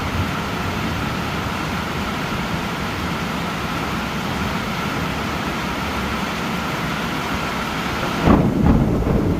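Steady rain falling, then a loud clap of thunder breaks in near the end and rumbles on.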